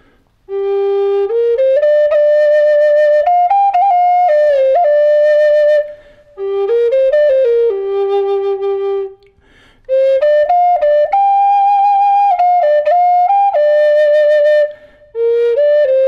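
Ebonized walnut Woodpecker birdhead Native American flute in the key of G minor, playing a slow melody of held notes with quick grace-note flourishes. It plays in four phrases, with short breaks for breath about 6, 9 and 15 seconds in.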